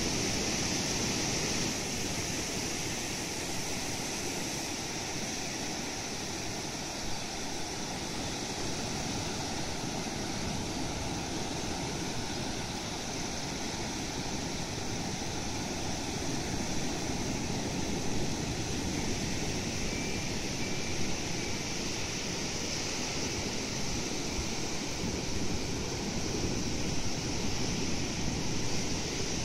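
Ocean surf breaking and washing up a flat sandy beach, a steady rushing with a constant high hiss above it.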